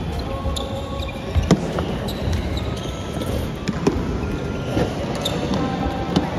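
Sports shoes stamping and squeaking on an indoor court floor during badminton shadow footwork, with several sharper thuds from lunging steps, in a large echoing hall.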